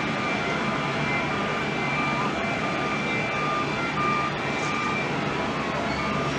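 Steady rushing noise of airliner jet engines across the apron, with a repeating electronic beeper alternating high and low tones about twice a second, like a ground vehicle's warning alarm.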